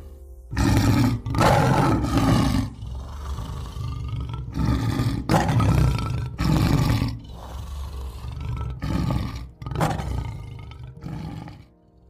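Lion roaring and growling in a run of about eight separate calls, each lasting up to about a second. The last few calls are shorter and quieter.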